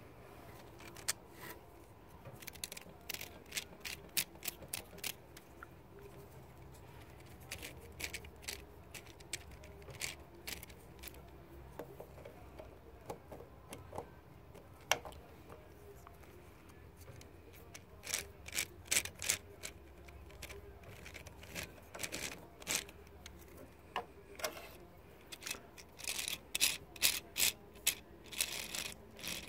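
Plastic clicking and rattling from the internal gears of a one-piece 3D-printed fan as its two halves are twisted by hand, coming in irregular bursts of rapid clicks with short pauses between.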